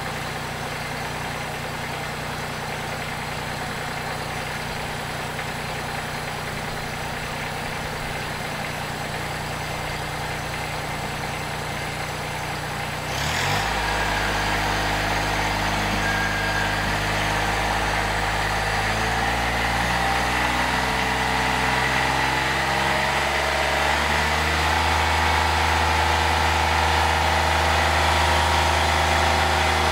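Engine of a Kubota-based tractor running steadily. About halfway through it gets suddenly louder and its pitch steps up, then it climbs further in stages as the engine speeds up.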